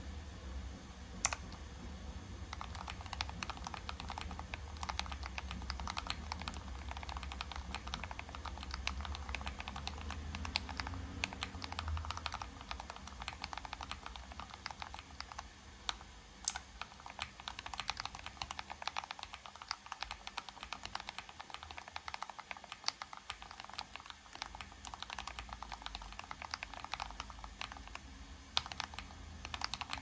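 Fast touch-typing on split mechanical keyboards: a rapid, unbroken clatter of keystrokes. A single sharp click comes about a second in, before the steady typing starts.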